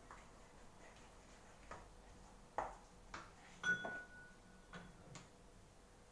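Wooden spatula knocking and scraping in a wok of mashed potato, a few faint, irregular knocks. About two thirds of the way in comes a sharper clink of kitchenware that rings briefly.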